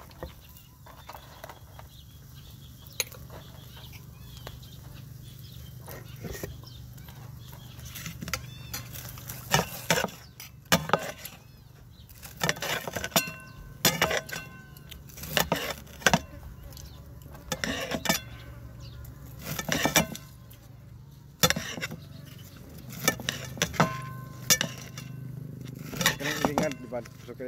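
Irregular clicks and clinks of eating utensils against a plate, some with a brief ring, over a steady low hum.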